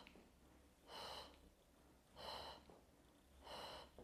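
A woman's short, sharp breaths, one about every 1.3 seconds, paced with repeated small seated leg lifts.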